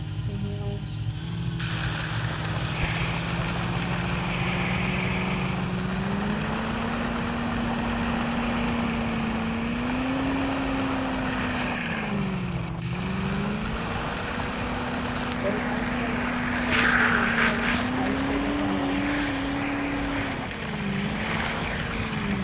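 Land Rover Defender's engine revving under load as it works for traction with one wheel off the ground: the revs climb about six seconds in, dip briefly in the middle and climb again, then fall near the end, over rough tyre and ground noise.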